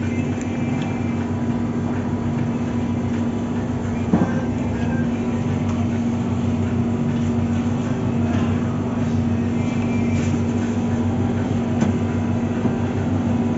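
Steady drone of a car cab in motion, heard from inside, with an unchanging low hum throughout and a few faint rattles and ticks.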